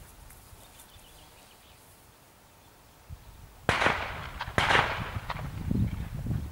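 Two sharp firecracker-like bangs about a second apart, a little past halfway through: the report of a pyrotechnic signal charge made for a sling-thrown signal projectile.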